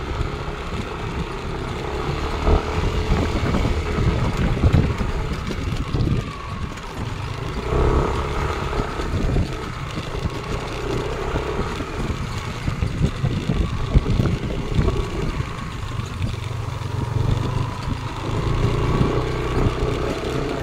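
Yamaha Aerox scooter's single-cylinder engine running steadily while being ridden along a rough dirt trail, heard from the handlebar under a heavy low rumble with frequent small knocks.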